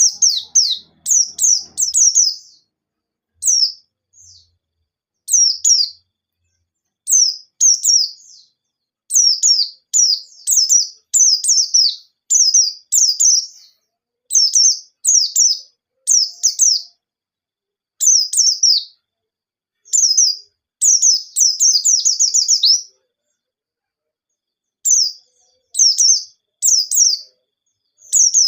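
White-eye (pleci) singing: quick runs of short, high, falling chirps, a few notes at a time with brief pauses between, and a longer pause a little before the end.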